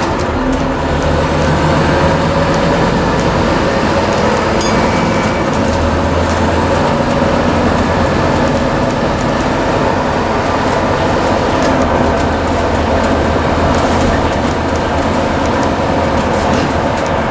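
Scania N230UD double-decker bus's nine-litre five-cylinder diesel engine and drivetrain running under way, heard from inside the passenger saloon, with the engine note shifting in pitch a few times as the bus changes speed.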